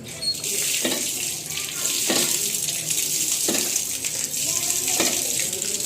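Hand pump being worked, water gushing out in a steady splashing stream, with a knock and surge each stroke about every second and a half. The freshly repaired pump is drawing water properly again.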